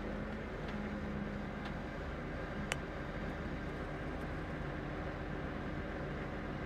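Steady engine noise of a Case IH CVX tractor and a self-propelled forage harvester driving side by side as the harvester chops standing crop into the tractor's trailer. A single sharp click sounds about two and a half seconds in.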